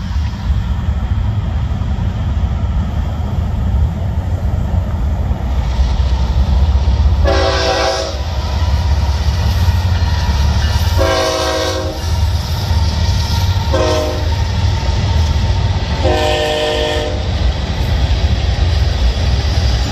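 Florida East Coast Railway diesel freight train running across a trestle with a steady low rumble, its locomotive horn sounding long, long, short, long, starting about seven seconds in: the standard grade-crossing signal.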